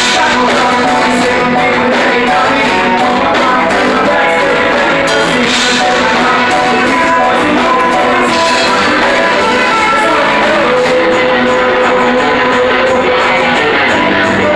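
Live rock band playing loud: electric guitar and drums with singing, heard in the room of a small club.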